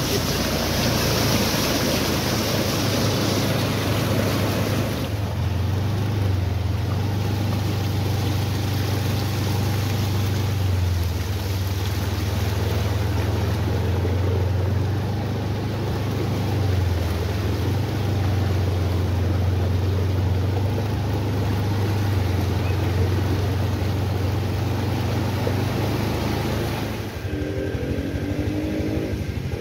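A vehicle engine running at a steady low hum under a rushing noise of floodwater and rain. The rushing is heaviest in the first five seconds.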